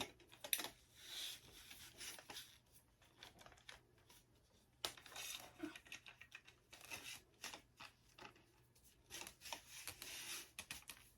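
Plastic packaging rustling and being pulled off the ring light's parts, in short scratchy bursts with a few sharp clicks.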